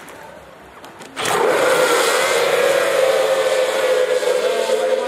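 A field of Formula 2 race boats' Mercury outboard engines opening up to full throttle all at once about a second in, at a standing start, then running together as a loud, steady drone.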